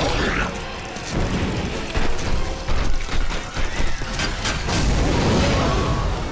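Animated-film soundtrack: orchestral score under loud action effects, with clanking mechanism sounds and a rapid string of crashes and booms in the middle.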